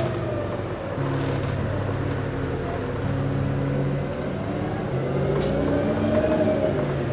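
Orion VII Next Generation hybrid-electric city bus heard from on board: a steady drivetrain hum with the electric drive's whine falling as the bus slows, then rising again from about four seconds in as it accelerates.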